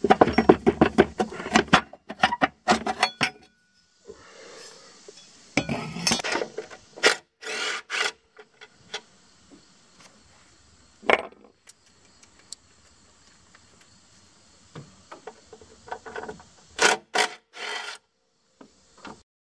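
Hand ratchet wrench clicking as bolts are backed out: a fast run of clicks at first, then shorter runs with pauses between.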